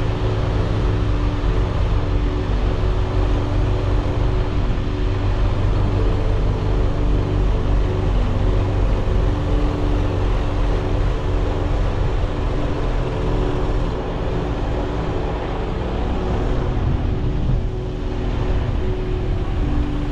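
Semi truck on the road: steady engine drone and low road rumble.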